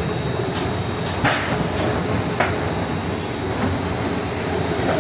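Trapezoidal sheet roll forming machine running, its forming rollers working the steel sheet: a steady mechanical rumble with a few sharp metallic clicks.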